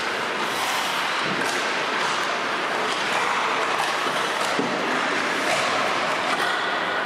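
Ice hockey practice on a rink: a steady hiss of skate blades carving the ice, with a few short scrapes and knocks of sticks and pucks.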